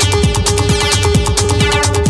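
Electronic dance music from a DJ mix: a steady four-on-the-floor kick drum about twice a second under fast hi-hats and a held synth tone.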